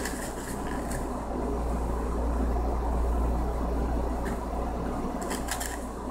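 Steady low hum, with a few faint short clicks.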